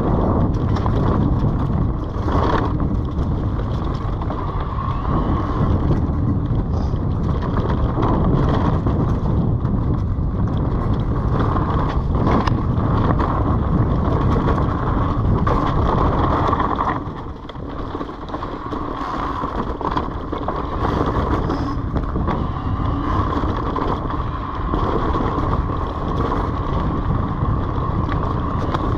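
Wind rushing over the microphone and the tyres of an Orbea Wild FS H25 electric mountain bike rolling over a leaf-covered dirt trail. The noise dips for a moment about 17 seconds in, then carries on.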